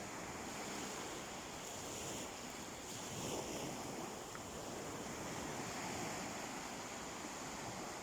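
Sea waves washing onto a beach: a steady rush of surf that swells a little about three seconds in.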